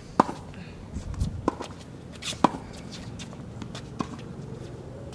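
Tennis ball struck by a racket and bouncing on a hard court: a series of sharp pocks about a second apart, the loudest about a quarter second in.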